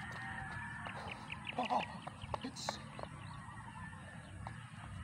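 Domestic fowl calling in short clucking or honking calls, loudest about a second and a half in, over a steady low rumble.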